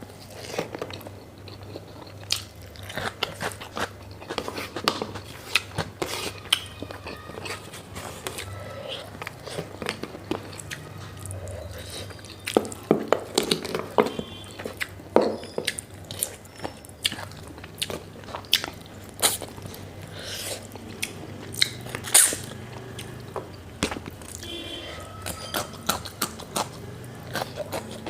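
Close-up mukbang eating sounds: a person chewing and biting pork fat and rice, with many irregular sharp wet mouth clicks and smacks.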